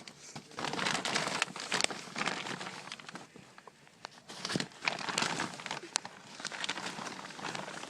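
Crinkling and rustling with scattered sharp clicks, loudest about a second in and again around five seconds.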